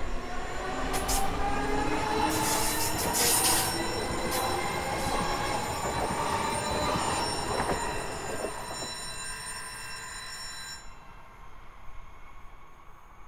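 SL X60B electric commuter train pulling away, its traction motors whining in a stack of tones that rise steadily in pitch as it accelerates, over wheel-on-rail noise. There is a short hissing burst about two seconds in, and the train fades away after about eight seconds.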